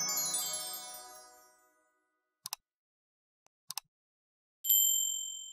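A sparkly chime jingle fades out over the first two seconds. Then come two quick pairs of mouse clicks, and a bright bell ding rings out near the end and fades slowly: the sound effects of an animated like-and-subscribe button, clicks on the buttons and a ding on the notification bell.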